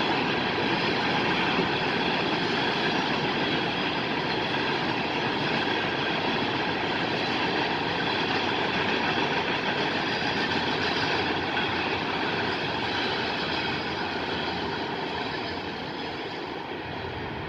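Mixed freight train's cars rolling past on the rails, a steady noise of wheels on track that fades over the last few seconds as the end of the train goes by.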